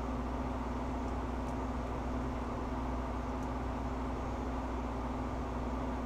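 Steady mechanical hum with a constant low tone, even and unchanging throughout.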